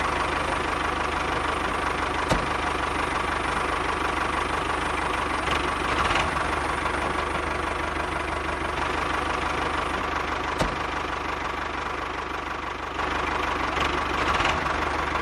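Steady idling engine with a knocking chug, an engine sound effect dubbed over the toy-tractor play. A couple of sharp clicks cut through it.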